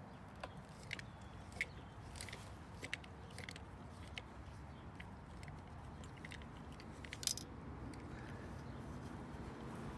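Small, irregular metal clicks and ticks of an Allen wrench turning out the screws that hold the crank mechanism in a patio umbrella pole, with a slightly sharper click about seven seconds in. A low steady rumble lies underneath.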